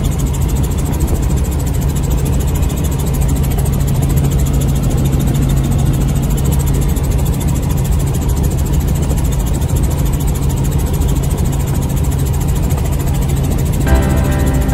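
Helicopter engine and rotor noise, a steady loud drone with a low hum. Music comes in near the end.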